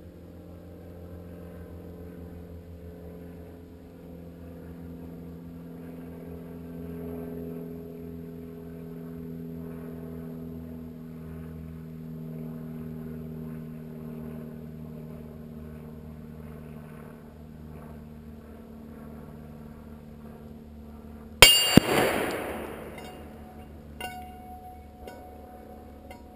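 A rifle bullet striking a hanging steel target plate near the end: one sharp, loud clang with a second crack right after it, the plate ringing and fading over about two seconds. A smaller knock follows a couple of seconds later as the plate swings.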